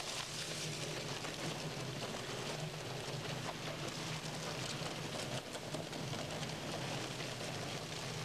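Intimus 16.86 shredder-baler running steadily, its cutting rollers shredding paper with a continuous crackling hiss over a low motor hum.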